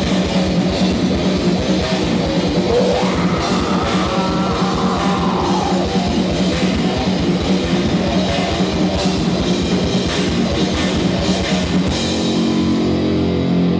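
Live heavy metal band playing an instrumental passage: distorted electric guitars and bass over fast drum-kit drumming. About twelve seconds in, the drums drop out and the guitars ring on.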